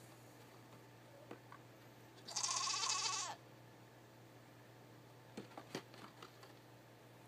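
A goat bleats once, a loud wavering call about a second long. A few faint clicks follow.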